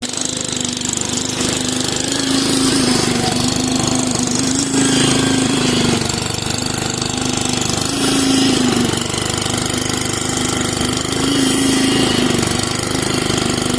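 An engine-driven machine on a concrete job running steadily and loudly. It makes a continuous hum that swells and eases a little every few seconds.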